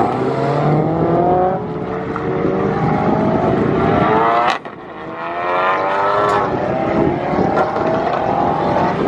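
Turbocharged 2.0-litre four-cylinder of a big-turbo Mk7 Volkswagen Golf R being driven hard, its engine note climbing in pitch, dropping off and climbing again several times as the driver accelerates and lifts between corners. There is a click and a sudden brief drop in loudness about halfway through, after which the engine comes back in.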